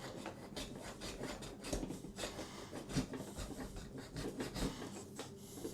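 Spline roller run back and forth along a window screen frame, pressing screen spline and mesh into the groove: a quiet, irregular rubbing and scraping with many small clicks.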